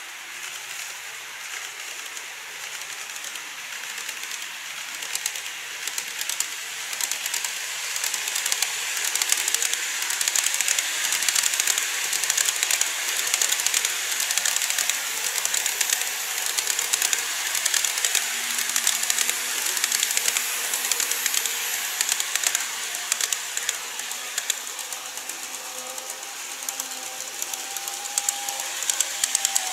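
Model electric train running on viaduct track: a steady rushing hiss with rapid fine clicking from the wheels on the rails. It swells as the train passes about halfway through, eases, then builds again near the end. A thin motor hum comes in during the second half.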